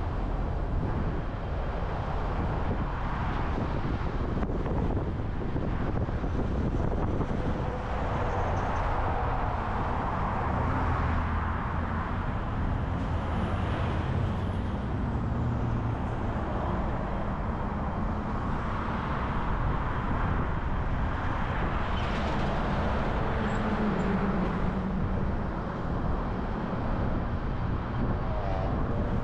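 Steady road noise of a car driving, with the sound of surrounding traffic.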